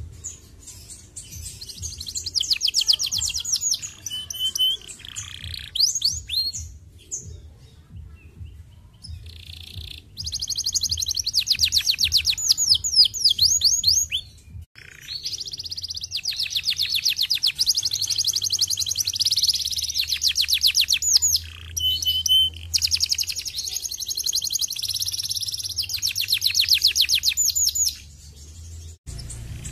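Domestic canary singing long, very fast trills and rolls, one phrase running into the next with a few short pauses.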